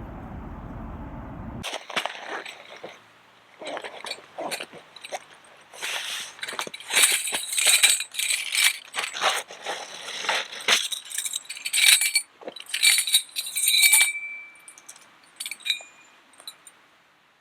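A steady rushing noise stops abruptly. It gives way to a run of clinks and clatters of small hard objects, some leaving a short ringing tone, busiest in the middle and thinning out near the end.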